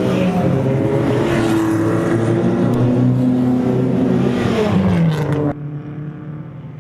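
BMW 325i E30's straight-six engine running hard under racing load, its pitch climbing and dropping with gear changes and falling away about five seconds in. The sound then cuts abruptly to a quieter, duller engine note.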